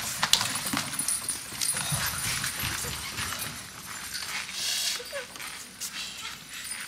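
Performers' feet stepping and shuffling on a stage floor, irregular knocks and clicks with a brief hiss of movement about two-thirds of the way in.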